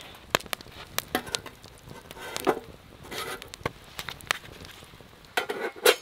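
Wood campfire crackling with scattered sharp pops, and a few louder metal knocks near the end as the lidded steel mess tin on the fire is handled.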